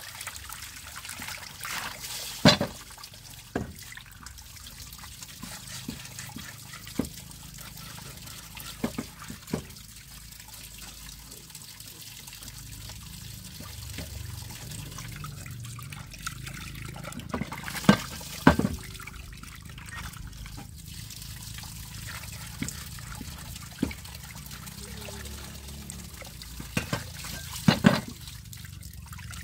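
Water trickling steadily, with short sharp knocks and clicks every few seconds, the loudest about two and a half seconds in, twice around eighteen seconds and twice near the end.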